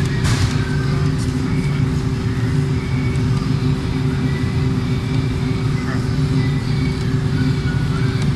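A steady low mechanical drone with several fixed pitches, like an idling engine or running machinery, with a short click just after the start.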